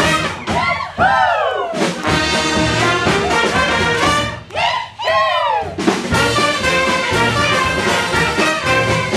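Live brass band playing a lively tune. Twice the band drops out for a swooping glide that rises briefly and then slides down in pitch, once about half a second in and once about four and a half seconds in.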